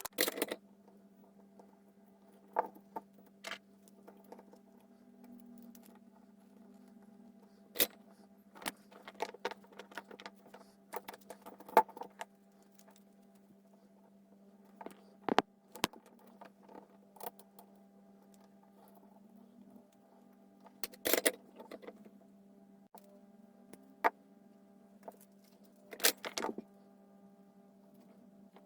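Scattered sharp clicks, taps and light metallic rattles of hands handling small tools and parts at a workbench, over a steady low electrical hum.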